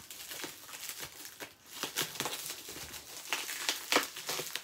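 Scissors cutting through clear plastic wrap, the plastic crinkling and crackling irregularly.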